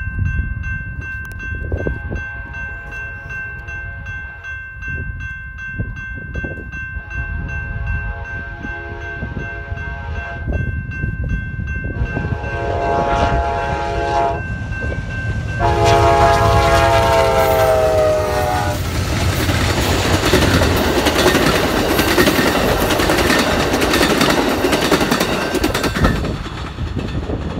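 Railroad crossing's General Signals type 2 electronic bell ringing steadily while an approaching Amtrak train sounds its horn in the grade-crossing pattern: long, long, short, long. The train, led by two GE P42DC diesel locomotives, then passes through the crossing, its rumble and wheel clatter drowning the bell, and dies away near the end.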